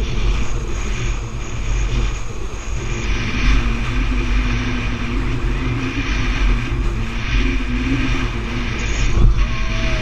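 Speedboat's engine running steadily under way, with a strong low rumble and a steady rushing noise over it.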